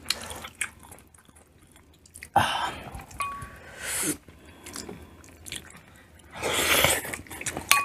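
Close-miked eating sounds of shrimp and mussels: biting and wet chewing in short bursts, with a louder burst of eating noise about six and a half seconds in.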